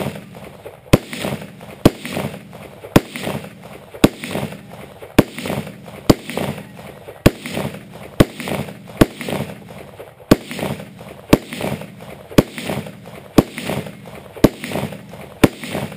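A string of about fifteen gunshots fired singly at a steady pace of roughly one a second, each crack followed by a short echo. None sets off the Tannerite exploding target: the target is hit without detonating.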